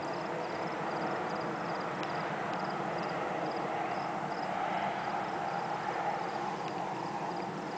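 Outdoor ambience in a grassy meadow: a steady rushing noise, with a faint high chirp repeating about twice a second that fades out about halfway through.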